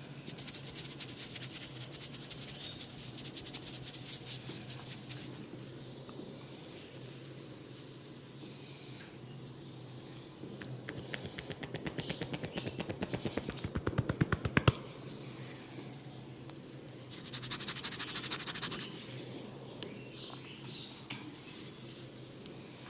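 A barber's fingers scratching rapidly through hair and over the scalp right at the microphone, then a run of fast hand taps on the head that grow louder and stop suddenly, followed by another short bout of scratching.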